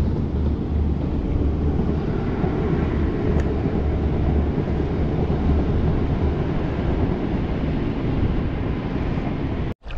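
Wind buffeting the microphone over open water: a steady, loud rushing noise with an uneven low rumble.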